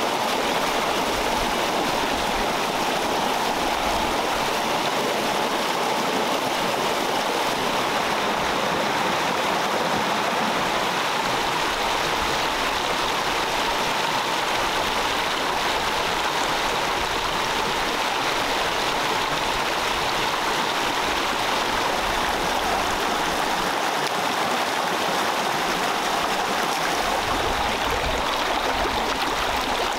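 Shallow rocky mountain stream rushing steadily over stones and small cascades.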